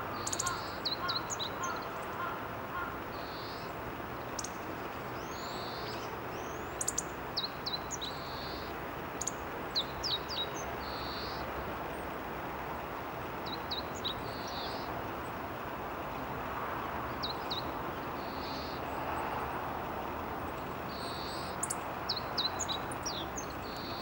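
Meadow bunting giving short clusters of sharp, high notes every few seconds. Softer blurred high calls come in between, and near the start another bird repeats a lower call evenly, about three times a second, over a steady background hiss.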